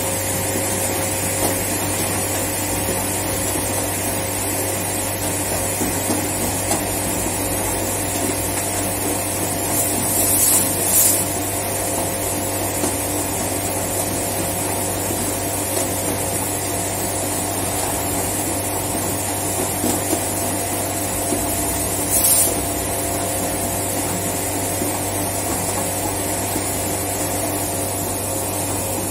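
Steady hum of plastics-processing machinery: a strong low drone with several steady tones above it. Brief hissing bursts cut in twice, about ten seconds in and again about twenty-two seconds in.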